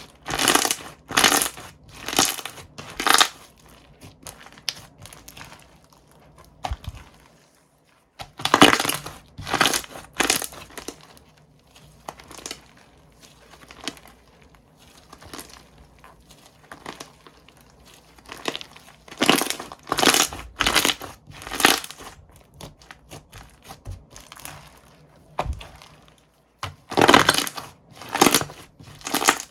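Slime being pressed and squeezed by hand, in runs of four or five quick sounds with pauses of several seconds between the runs.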